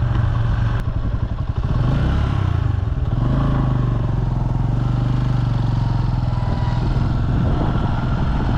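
Bajaj Boxer 150X single-cylinder motorcycle engine running steadily while riding on the road, mixed with wind noise. The engine note wavers briefly about a second in, then holds steady.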